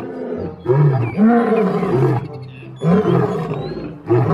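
Male African lion roaring in a bout, with several deep roars one after another.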